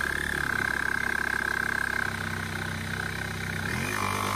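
DeWalt cordless jigsaw cutting through 2-inch-thick cherry: the motor running with a steady whine and the blade giving a rapid reciprocating rattle, going through the hardwood without strain. The motor's tone shifts near the end.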